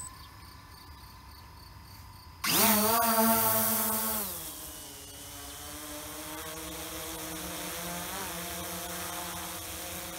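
Bayangtoys X21 quadcopter's brushless motors and propellers, one motor newly replaced, spinning at idle, then throttled up for takeoff about two and a half seconds in: a sudden loud whine. After about two seconds it eases slightly lower and settles into a steady hover whine as the drone climbs away.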